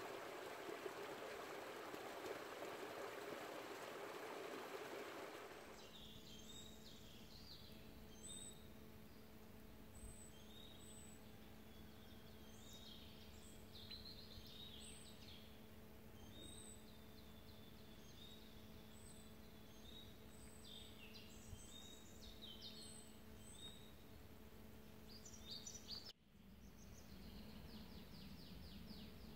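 Flowing river water for about the first six seconds. After a sudden change, birds sing and chirp over a faint steady low hum. Near the end it shifts again to a soft haze with a fast repeated trill.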